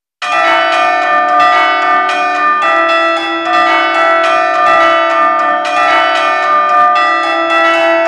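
Church bells pealing: a quick, steady run of strikes, two or three a second, each ringing on into the next, starting abruptly a moment in.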